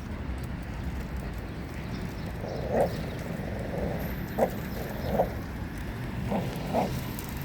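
A dog making about five short grunting sounds while it keeps hold of a toy, over a steady low background rumble.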